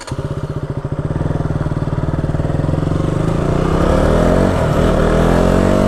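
KTM 200 Duke's single-cylinder engine under way and accelerating, heard from the rider's seat: distinct pulses at first, the pitch climbing for about four seconds and then holding steady at cruising speed.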